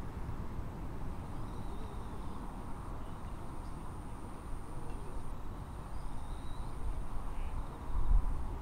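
Open-air riverside ambience: a steady low rumble with a few faint bird chirps and a faint, thin high whine. A louder low gust of rumble comes near the end.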